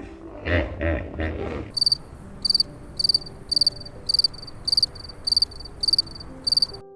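A cricket chirping steadily, about two short chirps a second. For the first second and a half, before the chirping starts, a low pulsing sound runs and then breaks off.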